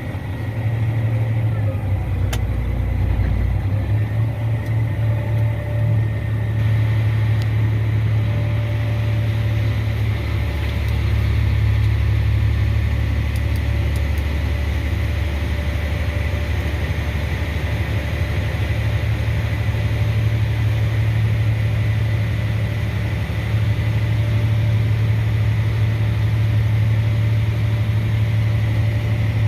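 Farm harvest machine's diesel engine running steadily, a constant low drone with a faint steady whine above it.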